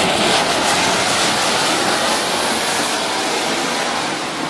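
Standard Fireworks tricolour fountain (anar flower pot) burning, spraying sparks with a loud, steady rushing hiss.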